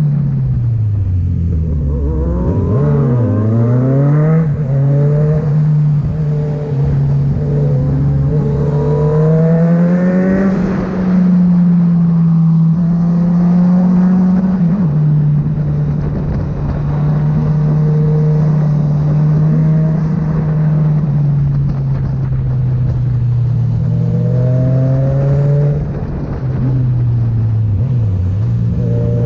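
Kawasaki Z900 inline-four with an aftermarket Firetong exhaust running on the road, its engine note falling and rising as it is throttled and shifted, with a sudden drop in pitch about halfway through and a brief dip near the end.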